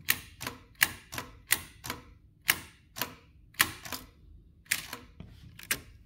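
Typebar mechanism of a cutaway demonstration typewriter, worked by repeated key presses: a dozen or so sharp metallic clacks, under a second apart, as the typebar strikes forward, trips the ribbon-advance bar and springs back.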